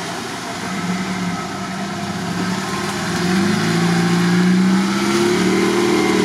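Off-road vehicle's engine under throttle as it backs up, the revs climbing about three seconds in and held higher.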